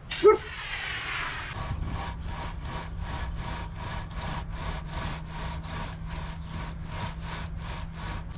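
A screed board dragged back and forth across freshly poured wet concrete in a sawing motion, about three even scraping strokes a second, levelling the slab. It opens with a short loud sound a quarter second in.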